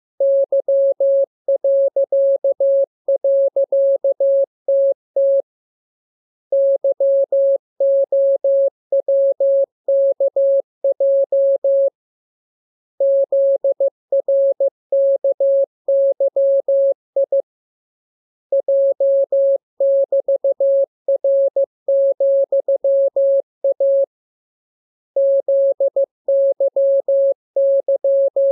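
Morse code (CW) practice tone: a single steady mid-pitched tone keyed on and off in dots and dashes at an even speed, sent in groups of letters with a pause of about a second between groups.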